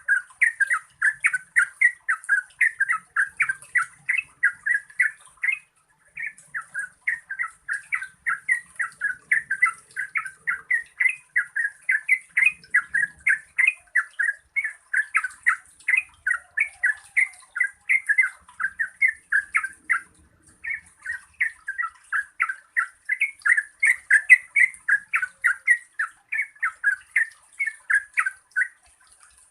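Yellow-vented bulbul singing a long, fast run of bubbling notes, about four a second, breaking off briefly twice before starting again.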